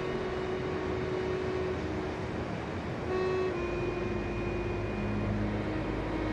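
Background music of slow, held notes that step from one pitch to the next, with a low bass layer coming in about halfway through.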